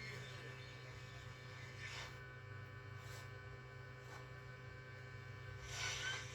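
Steady low electric hum of a hot air rework station's blower during the charging IC replacement, with brief hissing swells about two seconds in and, louder, near the end.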